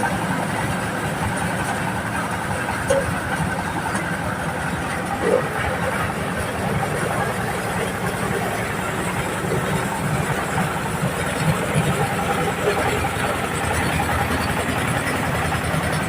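Diesel engine of a mobile corn-shelling machine running steadily, with a couple of brief knocks about three and five seconds in.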